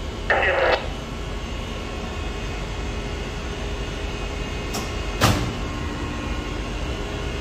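Steady drone of engine-room machinery, with a brief rushing burst just after the start. About five seconds in comes a sharp click from the starter panel as the main lube oil pump is started.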